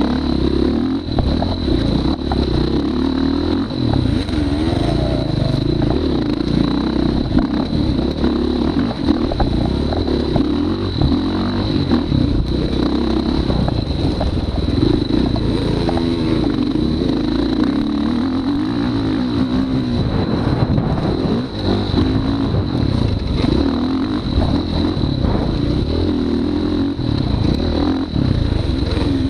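Off-road motorcycle engine running hard and revving up and down with the throttle as it is ridden around a dirt track, picked up close by a chest-mounted camera, with some clatter from the bike.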